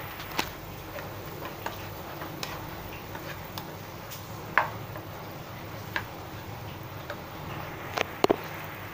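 Plastic rice paddle knocking and scraping against a nonstick frying pan as fried rice is stirred: scattered irregular clicks over a steady hiss from the pan, the loudest a quick double knock near the end.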